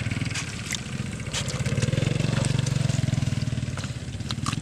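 A small engine running steadily with a fast even beat, growing louder about two seconds in and easing off near the end. Over it come wet squelches and clicks of hands digging in thick mud.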